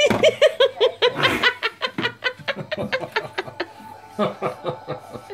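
A person laughing in a long run of quick, rhythmic bursts, loudest at first and trailing off, then a fresh burst of laughter about four seconds in.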